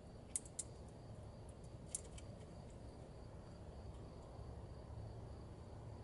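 Faint sharp plastic clicks from a small electrical connector and its wire terminal pins being handled, three clicks within the first two seconds, over a low background hum.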